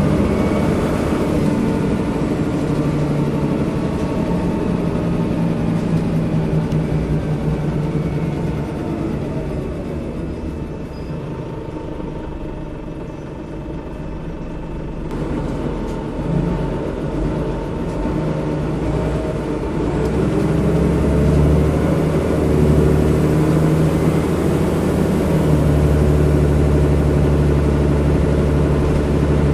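Single-decker bus's diesel engine heard from inside the saloon near the back. It runs under way, eases off and quietens about ten seconds in, then takes up load again and runs louder and deeper from about twenty seconds in as the bus accelerates.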